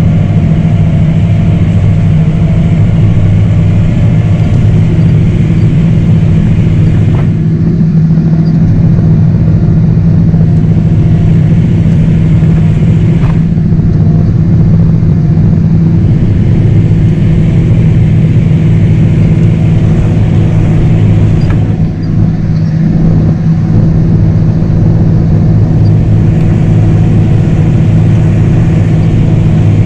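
A vehicle engine running loud and steady at constant speed, an even low drone with no change in pitch, briefly dipping in loudness about two-thirds of the way through.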